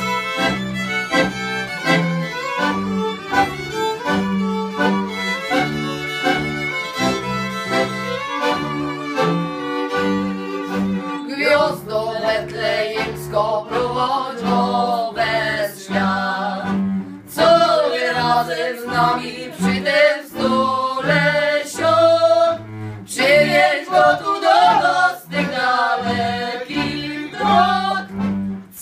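Polish highlander folk carol played on two violins and a diatonic button accordion. About eleven seconds in the violins stop and the two women sing the carol, with the accordion accompanying.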